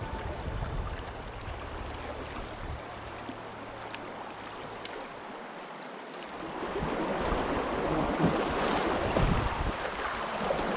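Rushing river water mixed with wind buffeting the microphone, growing louder about two-thirds of the way through.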